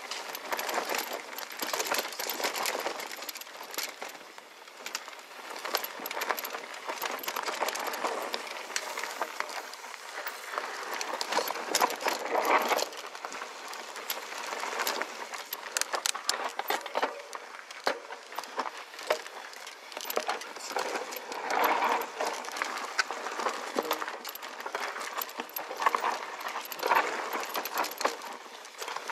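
Mountain bike riding down a rough dirt singletrack: tyres rolling over dirt, rocks and roots, with a steady stream of metallic clicking and rattling from the bike over the bumps. The noise swells and eases irregularly as the terrain changes.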